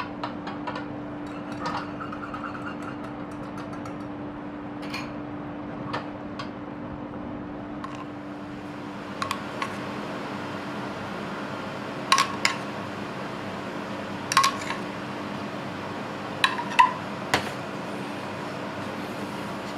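A metal spoon clinking against a dish, in about five sharp ringing taps over the second half, over a steady low hum. Near the start there are quick light clicks of a metal whisk against a saucepan.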